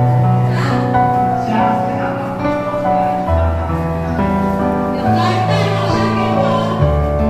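Background music: a song with singing over sustained instrumental chords and a moving bass line.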